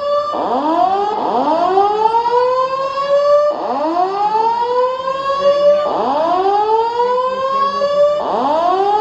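Notifier fire alarm evacuation system sounding its whoop tone: loud rising whoops, each sweeping up in pitch and levelling off, repeating every couple of seconds, with several whoops overlapping out of step.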